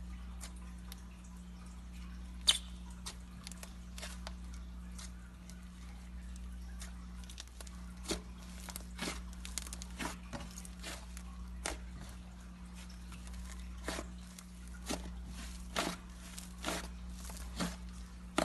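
Fluffy slime squished and pressed by hand, with irregular wet clicks and pops as air bubbles in it burst. One sharp pop stands out about two and a half seconds in, and the pops come more often in the second half.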